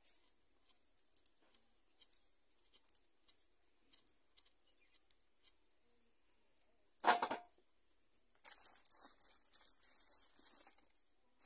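Faint, scattered small clicks of a knife peeling potatoes by hand. About seven seconds in there is one sharp knock, then a couple of seconds of rustling, scraping noise as the wood fire in a mud chulha is tended.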